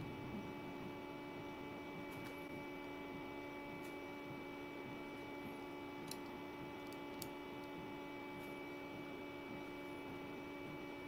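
A steady hum made of several fixed tones over a low haze, with a few faint, short clicks scattered through.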